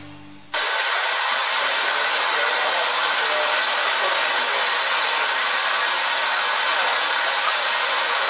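Steam hissing steadily from a standing 0-6-0T tank locomotive, an even, loud rush that starts abruptly about half a second in and holds constant.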